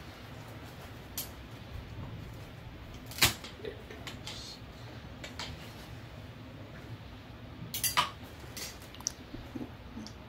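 Metal cast-removal hand tools being handled: scattered sharp clicks and clinks, the loudest about three seconds in and a small cluster about eight seconds in.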